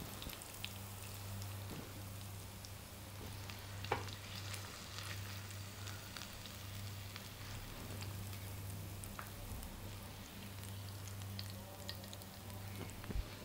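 Faint, steady sizzle and crackle of fish frying in ghee in a pan, over a steady low hum, with a light tap about four seconds in.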